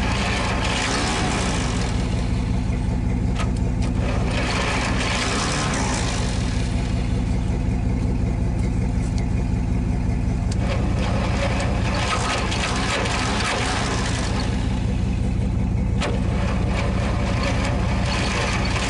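An engine idling steadily, with a few sharp clicks and bursts of rustling over it.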